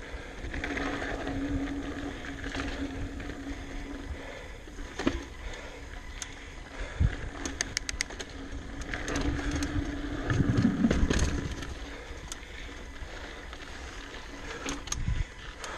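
Giant Talon mountain bike ridden over a dirt singletrack: continuous tyre and drivetrain rumble with scattered sharp rattles and clicks from the bike, a cluster of them about halfway through, easing off near the end as the bike slows.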